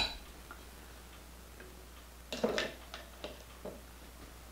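Light clinks and taps of a wire whisk against a glass measuring cup of pie filling: a short cluster about halfway through, then a few single faint ticks. The rest is quiet.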